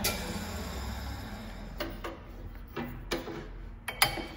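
Spiral planer thicknesser running down after being switched off, its hum fading away. A few sharp clicks come in the second half.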